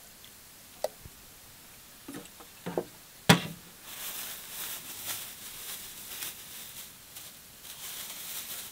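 A few light knocks and one sharp clack of objects handled on a steel camp counter, then a thin plastic bag crinkling and rustling as a hand works into it over the last few seconds.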